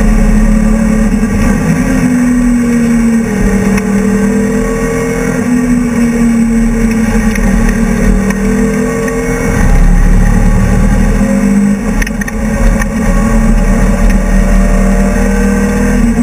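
BMW E30 race car's engine running hard at racing speed, heard from inside the stripped cabin. Its pitch climbs slowly and drops back a few times as it accelerates and changes gear, over steady road and wind noise.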